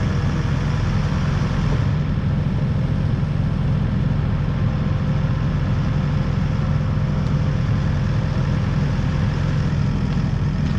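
Diesel engine of a Kubota loader idling steadily.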